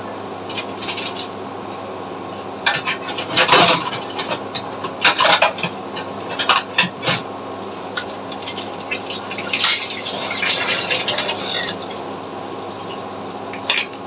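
Metal spoon clattering and scraping against a frying pan of brewing tea, in irregular bursts over a steady low hum.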